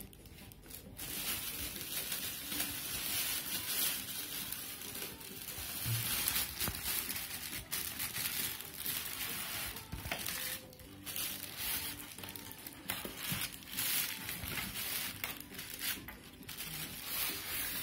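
Thin plastic wrapping bag crinkling and rustling as it is handled and pulled over a monitor, in irregular bursts.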